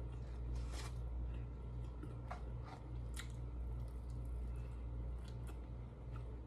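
Faint close-up eating sounds of a person biting into and chewing a chicken wing: soft wet mouth clicks and squishes scattered through, over a steady low hum.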